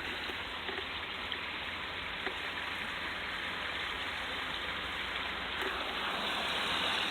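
Floodwater running in a steady rush, growing a little louder near the end.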